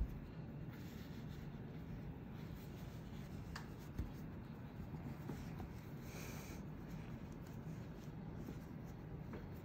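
Faint rubbing and rustling of cotton cloth and string as a folded tie-dye bundle is bound tight by hand, over a low steady room hum, with a small knock about four seconds in.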